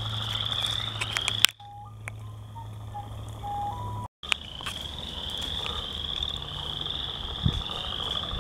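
Western chorus frogs calling in a chorus, a run of short rising trills one after another. The chorus cuts out for a couple of seconds in the middle, with a few sharp clicks, then resumes.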